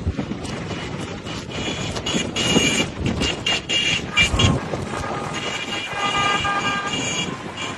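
Vehicle horns sounding in long steady tones over traffic and street noise, with a few sharp knocks among them.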